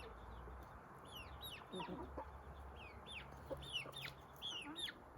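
Young chick peeping: a run of quick, high, falling peeps, several a second. The chick is an 18-day-old Australorp, Light Brahma and Silkie bantam cross.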